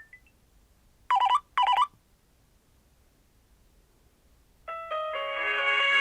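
Nokia C2-01 ringtones through the phone's small speaker. The last notes of one tune die away, a short double electronic ring sounds about a second in, and after a pause a new polyphonic ringtone starts near the end with two short notes and then a full chord-filled melody.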